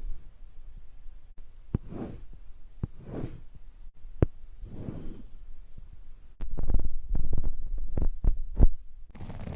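ASMR trigger sounds made close against the microphone: soft brushing swishes and single sharp taps, then about six and a half seconds in a muffled low rubbing on the microphone with several sharp clicks, which stops shortly before the end.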